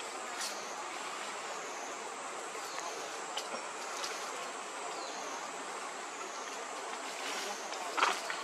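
Steady outdoor background noise with a thin, slightly wavering high drone of insects. A few faint clicks sound through it, and a brief louder sound comes near the end.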